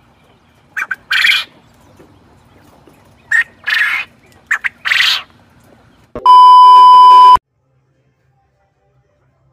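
Coturnix quail calling three times, about two seconds apart, each call a short note followed by a longer one. Near the end a loud, distorted steady tone lasts about a second.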